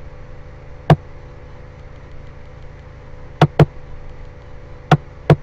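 Computer mouse clicking: five sharp clicks, two of them in quick succession about three and a half seconds in, over a steady low background hum.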